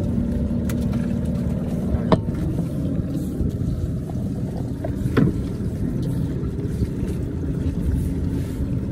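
A boat engine running steadily with a low, even hum. Two short sharp knocks come through, about two seconds in and about five seconds in.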